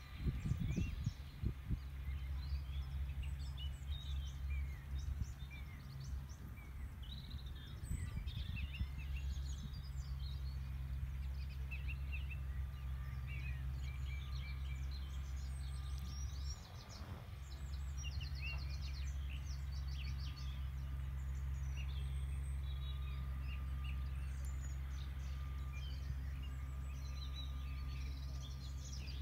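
Small birds chirping and trilling on and off throughout, over a steady low rumble. The rumble drops out briefly a little past halfway.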